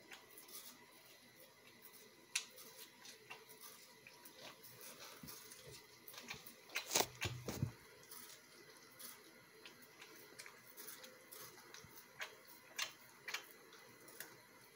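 American Staffordshire terrier puppy biting and chewing a watermelon rind: faint, irregular crunches and clicks, with a louder cluster of crunches about seven seconds in.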